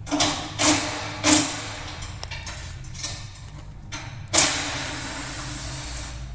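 Motorcycle shipping crate and packaging being handled: three sharp knocks in quick succession, then a louder knock about four seconds in that runs into a long scraping, sliding rush.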